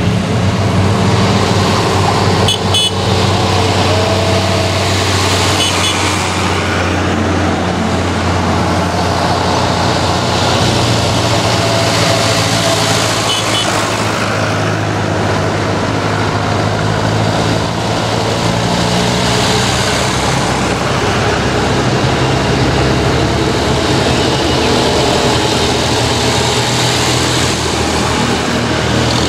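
Tractor engines running steadily, a constant low engine hum, as classic tractors drive along the road toward the listener.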